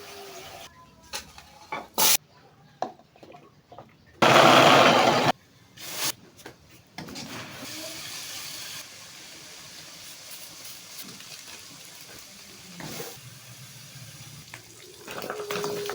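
Kitchen sink sounds: a few clicks and knocks, a loud rush of water for about a second, then a tap running steadily.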